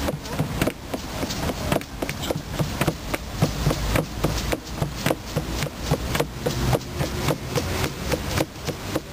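Hand drum beaten in a steady, even rhythm of about three to four strokes a second.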